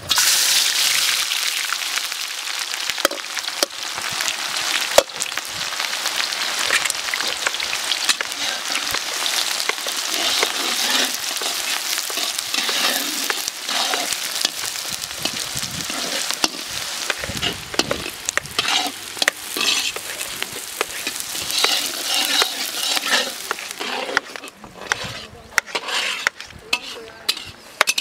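Chopped onions hitting hot oil in a large iron kadai and sizzling, stirred with a metal ladle that scrapes and clicks against the pan. The sizzle is loudest as the onions go in and softens near the end.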